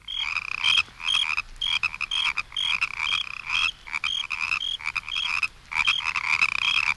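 Recorded chorus of frogs calling, with short high croaking notes repeating about two or three times a second, and crickets mixed in.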